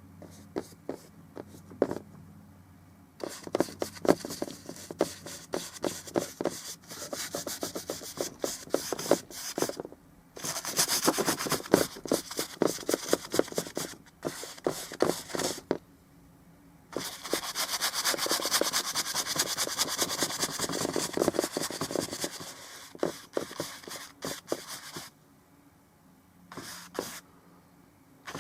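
Paintbrush scrubbing and dabbing oil paint onto a canvas: quick rubbing strokes and taps, with two longer spells of steady scrubbing, thinning to a few light taps near the end.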